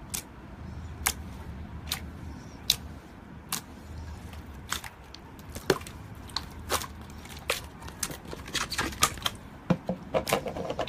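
Thick slime being poked and squished by fingers, giving sharp wet pops and clicks, about one a second at first and coming quicker and more often near the end.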